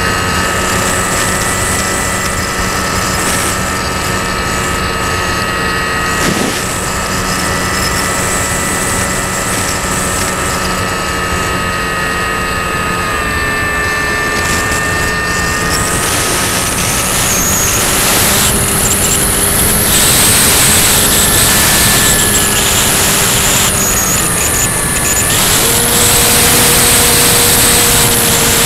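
Motor and propeller of an FPV model aircraft, recorded by its onboard camera: a steady whine of several tones that shift slightly in pitch with the throttle, over wind rushing past the camera. The wind noise grows stronger from about halfway through.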